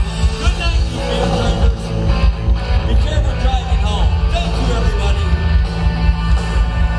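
Live band playing amplified rock music over a PA, with a steady bass underneath and guitar lines bending in pitch above.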